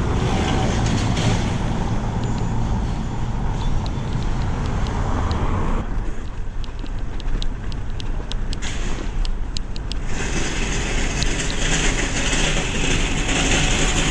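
Riding noise picked up by a camera microphone on a moving bicycle: steady wind rumble and road noise, with light clicks and rattles from the bike in the middle few seconds.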